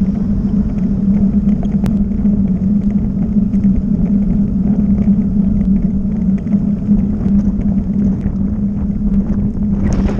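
Wind buffeting an action camera's microphone while cycling along a road, a steady low rumble with a constant hum under it. A brief louder hiss comes near the end.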